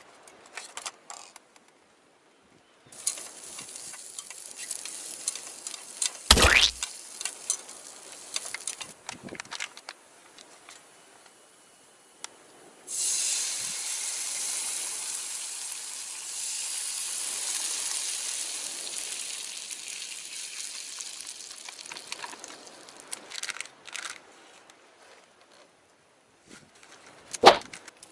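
Food sizzling in a hot frying pan: a steady sizzle sets in suddenly about halfway through and slowly dies down. Before it come lighter crackles and a sharp clack of metal cookware, and another clack comes near the end.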